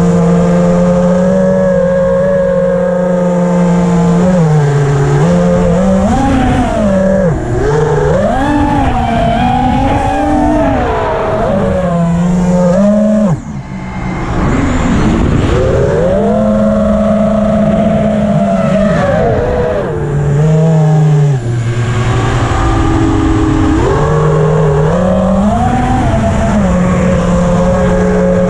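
Emax Hawk FPV racing quadcopter's brushless motors and propellers whining, heard from the onboard GoPro, the pitch rising and falling with the throttle, with wind noise rushing over the camera microphone. About thirteen seconds in the motors drop off for a moment, then spool back up.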